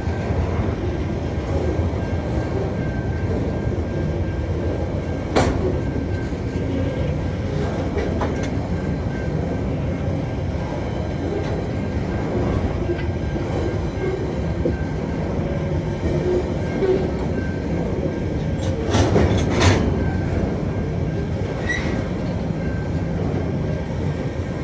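Tasrail container freight wagons rolling past at a level crossing: a steady low rumble of wheels on rail. There is a sharp knock about five seconds in and a short cluster of knocks near the end.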